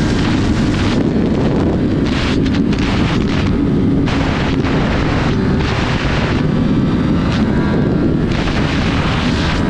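Wind rushing and buffeting over the onboard camera's microphone on a sport motorcycle at speed, with the engine's steady running faintly underneath. The loudness holds steady while the wind swells and eases every second or so.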